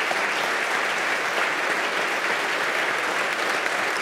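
A large audience applauding: steady, dense clapping with no let-up.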